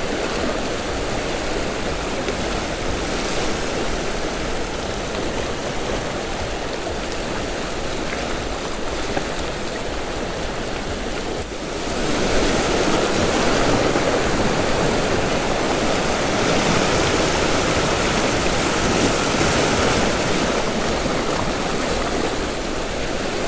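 Sea surf washing and breaking over shoreline rocks, a steady rush of water that grows louder from about halfway through.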